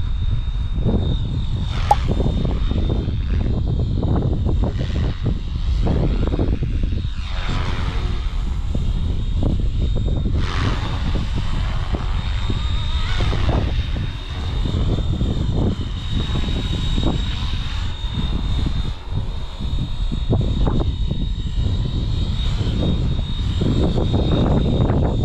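Electric RC helicopter (Flywing FW450 V3) in flight: a steady high motor whine and rotor noise that rise and fall in pitch as it manoeuvres, under heavy wind rumble on the microphone.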